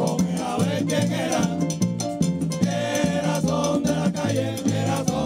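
Live Puerto Rican plena: panderetas (hand frame drums) and a güiro keeping a busy rhythm over a moving bass line, with voices singing in places.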